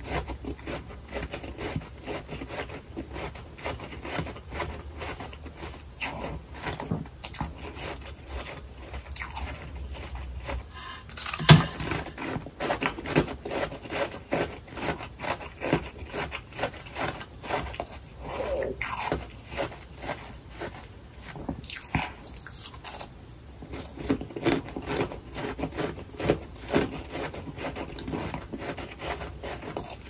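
Close-up chewing and crunching of humidifier freezer frost: a steady stream of small crackling crunches, with one sharp, loud bite about eleven seconds in.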